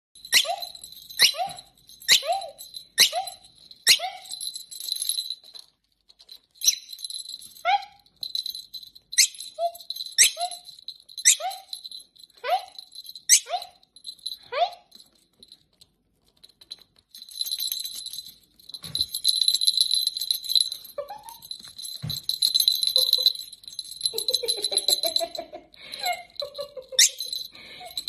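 Small metal jingle-bell toys ringing as a rosy-faced lovebird tosses and shakes them in its beak: single sharp jingles about once a second, each with a short ringing tail. After a brief pause past the middle, the bells jingle quickly and almost without a break.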